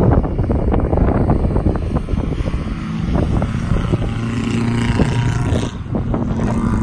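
Mercedes-Benz 200D W115's four-cylinder diesel engine running under load as the car drives past, its exhaust popping and backfiring, the pops thickest in the first second or so.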